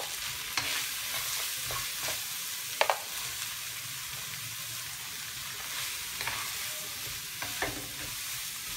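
Sliced onions sizzling steadily in hot butter in a kadai as they are tipped in and stirred with a wooden spatula. A few sharp knocks of the utensils on the pan and plate come through; the loudest is a double knock about three seconds in.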